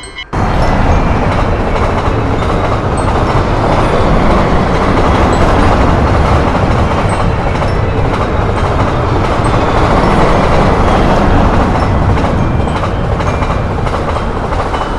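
Electric train running past at speed, a loud steady rumble of wheels and motors on the rails that cuts in abruptly just after the start.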